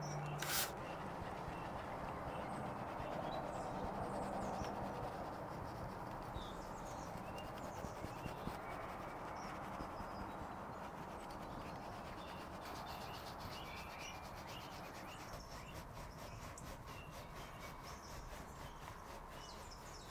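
A soft-bristled detailing brush scrubbing cleaner over a leather steering wheel, making a steady soft rubbing hiss. The brush strokes come quicker and closer together in the second half.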